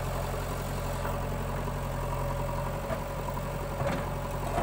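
JCB 3DX backhoe loader's diesel engine running at a steady low idle while the backhoe arm is worked, with a couple of faint knocks near the end.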